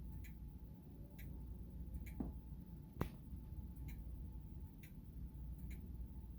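Grandfather clock faintly ticking about once a second as its pendulum swings, with one sharper knock about three seconds in.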